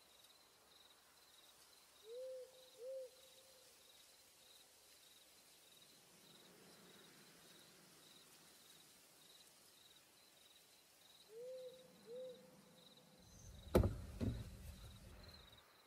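Faint night ambience: a high insect chirp pulsing steadily, and two pairs of soft pitched hoots, one pair about two seconds in and another about eleven seconds in. Near the end a sharp knock and brief rumble, the loudest sound, as a hand handles the camera.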